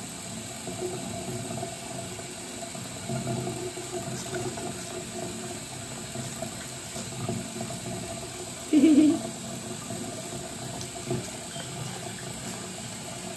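Tap water running steadily into a half-filled sink, with light splashing from hands and a wet kitten moving in the water. A short loud voice cuts in once, about nine seconds in.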